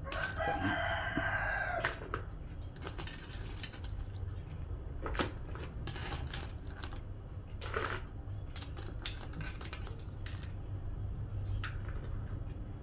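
Metal tongs moving cooked crabs about in a stainless steel pot: sharp, irregular clicks and knocks of shell and metal against the pot. A drawn-out pitched call sounds in the first two seconds, over a steady low hum.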